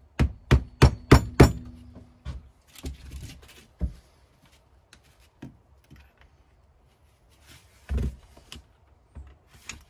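Tapping on a wedge to break a seized ATV brake pad loose: about five quick, sharp strikes in the first second and a half, then a few lighter knocks and a single dull thump near the end.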